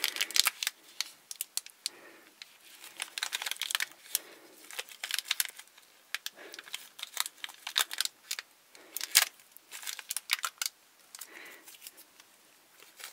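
Crinkly plastic Shopkins blind-bag wrapper crinkling and tearing as it is pulled open by hand: an irregular run of sharp crackles.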